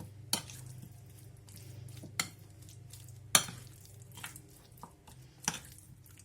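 Chicken wings being mixed through a thick marinade in a bowl: faint wet stirring with four sharp clinks of a utensil against the bowl.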